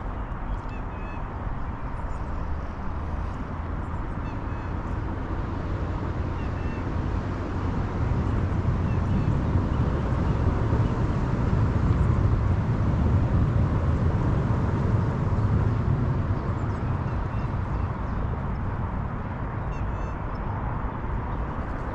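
Wind rumbling on the microphone, swelling through the middle and then easing, with faint high chirps from birds.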